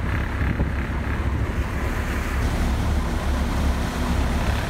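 Wind on the microphone over the steady low rumble of a motor boat under way, with water rushing past the hull.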